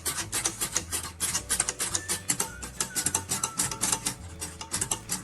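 Background music with many quick, light clicks.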